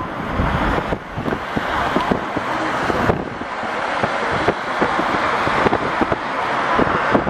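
Steady rush of road and traffic noise from a car driving along an urban ring-road motorway, with wind buffeting the microphone in short crackles throughout.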